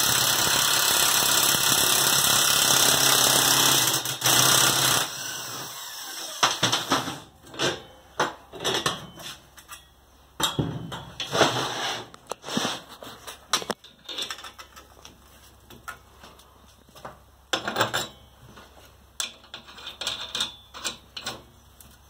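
Corded electric impact wrench hammering a nut down a bolt to draw a dimple die through a hole in a steel strap; it runs steadily for about five seconds, then stops. After that come scattered clanks and knocks of the steel strap and tooling being handled.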